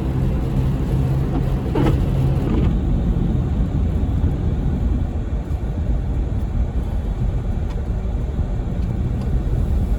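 Car driving with a steady low engine hum and rumbling road and tyre noise.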